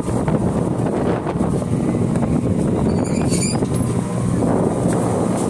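Steady low rumble of a river ferry under way, mixed with wind buffeting the microphone. A brief cluster of high chirps sounds about three seconds in.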